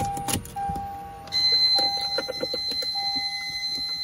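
A click as the Lexus GS300's ignition key is turned to accessory. A little over a second later the car's electronic warning buzzer starts, a steady high-pitched tone held for about three seconds that stops near the end.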